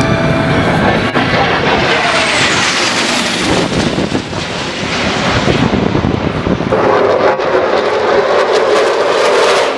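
Aircraft flying past at an air show: loud engine noise with a high whine that falls in pitch as it passes about two seconds in, then a steadier, lower engine drone from about seven seconds in.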